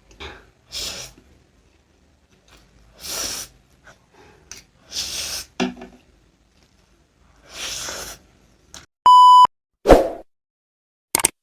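Several short, soft swishing noises, then a single short electronic beep about nine seconds in, followed by a thump and a couple of clicks.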